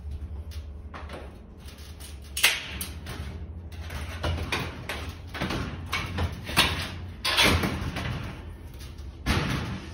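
Glass range cooktop being lowered and pressed into its frame: a series of knocks and scrapes of the panel against the range. The loudest knock comes about two and a half seconds in, with another sharp one just before the end.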